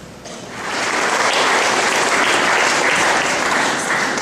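Audience applauding, starting about half a second in, swelling quickly and holding steady before easing off near the end.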